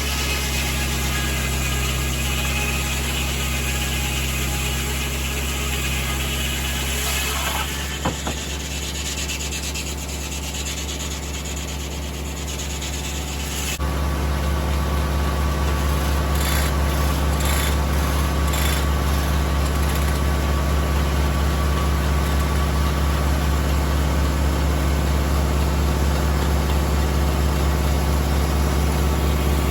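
Tractor-driven 1950 Corley circular sawmill running, its blade cutting poplar over the steady drone of the tractor engine. About eight seconds in the cutting hiss fades, and about fourteen seconds in the engine grows louder.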